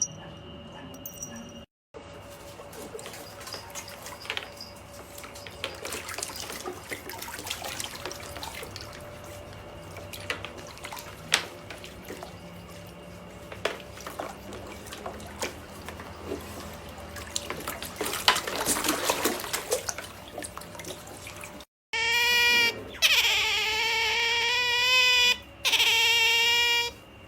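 Light watery splashing and small clicks for most of the time. Then, after a brief break near the end, a pet otter's loud, high, wavering whine comes in a few long calls.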